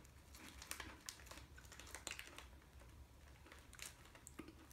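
Faint, irregular crinkling clicks of a plastic cookie wrapper being handled.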